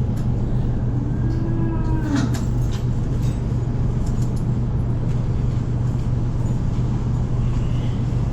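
Steady low hum of barn ventilation fans pulling air through the dairy barn. A short, faint pitched sound comes about a second in and drops in pitch at its end.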